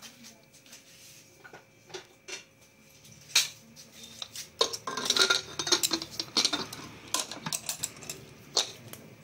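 Metal clinking and scraping as the inner-fitting lid of a pressure cooker is handled and fitted into the pot. A few scattered clicks come first, then a busier run of clatter from about halfway.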